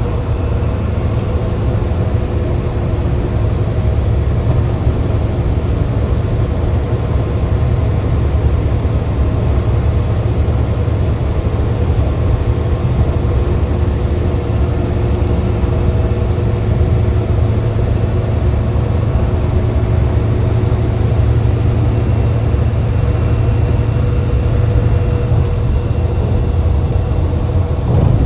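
Mercedes-Benz bus engine running steadily while the bus is under way, heard from inside the driver's cabin: a constant low drone with a steady hum above it.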